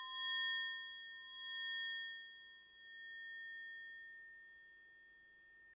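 Metal orchestral triangle ringing out undamped from a single strike, several high tones fading slowly and swelling and dipping in level as they die away.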